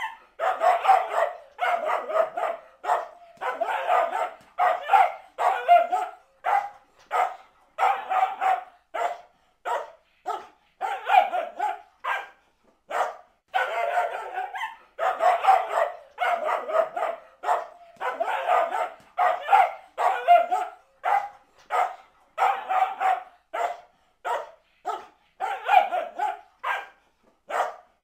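Terrier barking angrily in fast runs of short barks, several a second, with brief pauses between the runs.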